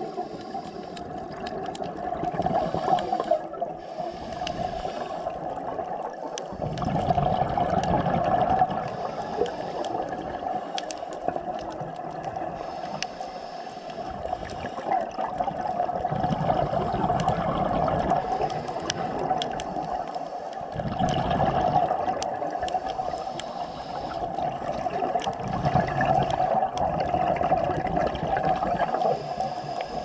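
Underwater sound picked up by a submerged camera: steady water noise with a constant hum, swelling into deeper surges every few seconds, with scattered faint clicks.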